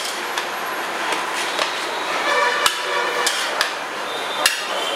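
Cooked white rice being fluffed with a metal spatula in a large metal pot: soft scraping and stirring, with about six sharp knocks as the spatula strikes the side of the pot.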